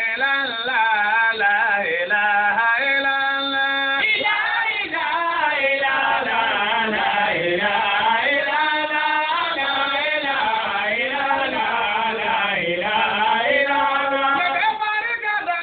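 Voices chanting a melodic line without a break, holding and bending long notes, with several voices overlapping at times.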